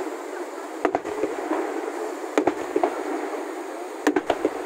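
Fireworks shells bursting in the sky: a sharp bang about a second in, another about two and a half seconds in, then a quick run of three bangs near the end, over a steady rushing background.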